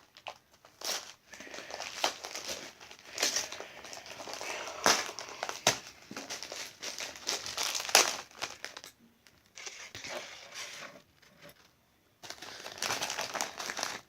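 Craft beads and plastic jewels being handled and put into a small tin: irregular clicks and crinkly rustles in short bursts, with brief pauses.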